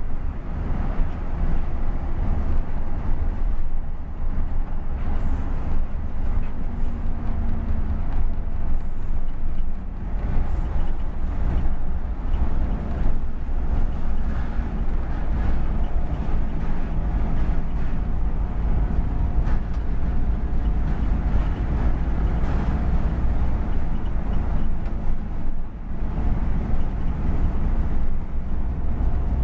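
Bus engine and road noise heard from inside the cab while cruising on a highway: a steady low drone with no distinct exhaust pops.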